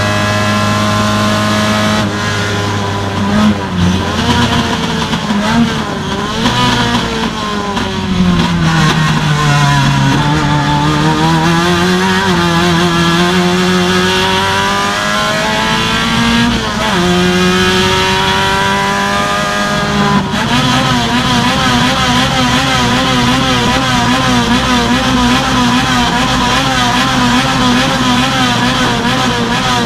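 Race car engine heard from inside the cockpit, running hard around the circuit. The revs fall and climb again about ten seconds in, there is a quick change partway through, and over the last third the engine holds steady with a slightly wavering pitch.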